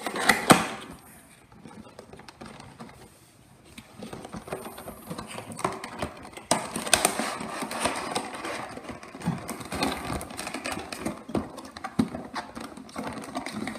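A cardboard box being opened by hand and a plastic tray wrapped in clear plastic slid out of it: irregular rustling, scraping and small clicks. There are a couple of sharp clicks at the start, it is quieter for a few seconds, and the handling grows busier from about four seconds in.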